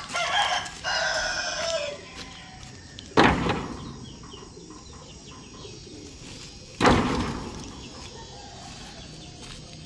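A rooster crows near the start, a pitched call that falls slightly at its end. Then come two loud, heavy thuds about three and a half seconds apart, each dying away quickly.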